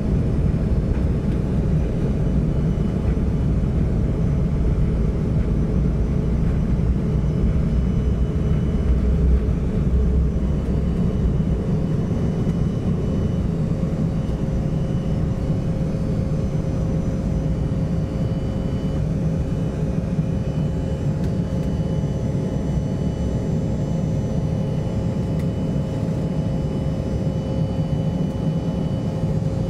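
Cabin noise of an Embraer 175 regional jet on its takeoff roll and initial climb: its turbofan engines at takeoff thrust give a steady drone with a faint high whine. A heavy low rumble from the wheels on the runway falls away about twelve seconds in as the jet lifts off.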